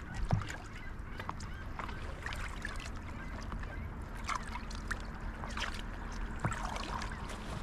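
Water splashing and dripping around a paddle and paddle board, in scattered short splashes over a steady wash of water noise. A low thump comes about a third of a second in.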